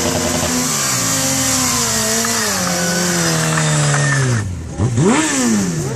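Sport motorcycle engine held at high revs during a burnout, the rear tyre spinning on asphalt with a steady hiss. The revs sag slowly over several seconds, cut briefly, and then a quick throttle blip sweeps up and back down near the end.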